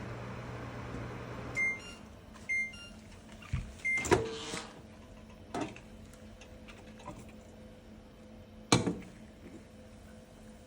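Microwave oven running with a steady hum that cuts off about a second and a half in, followed by three beeps signalling the end of the heating cycle. After that come a clunk and a few sharp knocks, the sharpest about nine seconds in.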